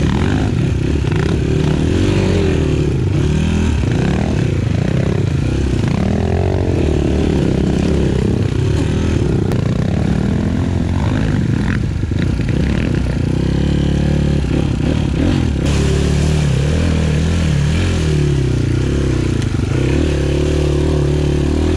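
Enduro motorcycle engine heard from on the bike, revving up and down over and over as it rides off-road through mud and water.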